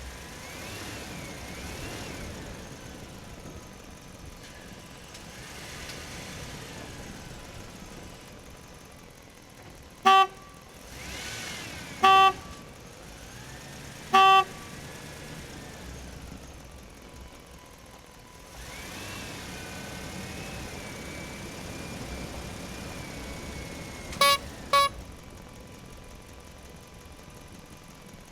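Toy vehicle's electronic horn tooting: three loud short toots about two seconds apart, then two quick beeps near the end, over a quieter whine that wavers up and down in pitch.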